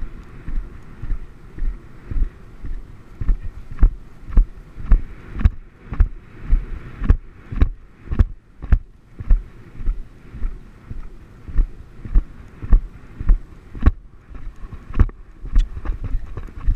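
A horse's hoofbeats on grass turf, heard from a camera on the rider: an even rhythm of low thuds about two strides a second, with sharper knocks on many beats.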